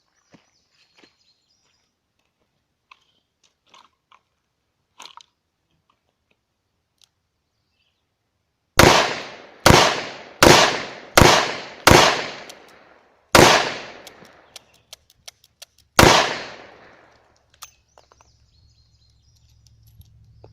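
Seven double-action shots from a Taurus Tracker 627 .357 Magnum revolver, each with a short ringing echo. Five come quickly, about one a second. The last two are spaced further apart, with faint clicks in the gaps.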